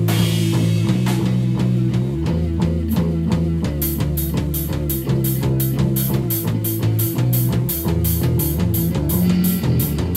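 Rock music with a drum kit, a bass line stepping between notes, and guitar. About four seconds in, cymbal strokes come in at about four a second.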